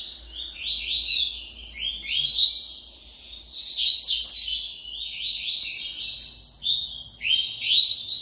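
Several caged double-collared seedeaters (coleiros) chirping in quick, overlapping high notes, with a brief lull about three seconds in.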